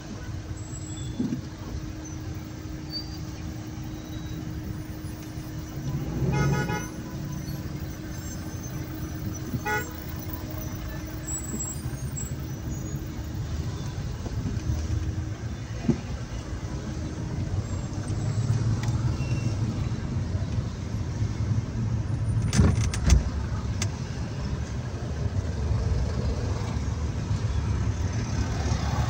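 Traffic heard from inside a moving car: a steady low rumble of engine and road noise, with a car horn sounding about six seconds in and briefly again near ten seconds, and two sharp knocks a little after twenty-two seconds.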